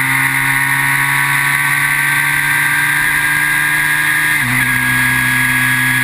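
Formula BMW single-seater's engine, heard onboard, running hard under load with its pitch creeping slowly up, then an upshift about four and a half seconds in, where the pitch drops sharply and settles.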